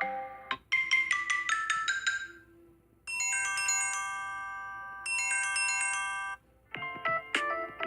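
Samsung Galaxy S7 edge ringtones played one after another. First comes a quick falling run of bright, bell-like notes, then a held chime chord sounded twice. Another short melodic tone starts near the end.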